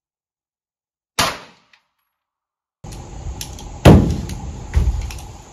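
9mm pistol shots: one sharp shot about a second in, then two more a second apart near the end, each with a short ringing decay and faint clicks between.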